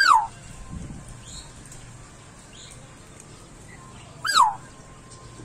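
An animal calling twice, about four seconds apart: each is a short call falling in pitch. Faint chirps sound in between.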